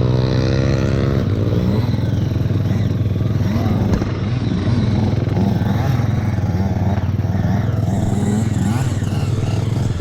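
Single-cylinder two-stroke dirt bike engine, a KTM 300 TPI, running continuously while riding off-road. The revs rise and fall over and over as the throttle is worked.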